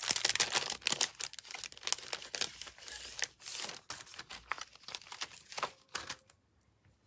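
Clear photopolymer stamps on their plastic carrier sheets crinkling and crackling as they are handled and spread out. The crackling stops about six seconds in, leaving a few small clicks.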